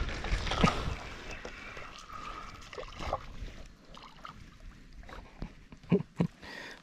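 Water splashing, loudest in about the first second, then a fainter trickling with a few small knocks.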